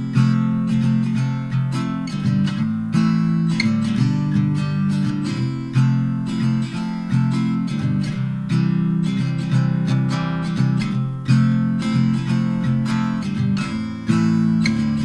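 Background music: plucked acoustic guitar playing a steady pattern of chords and notes.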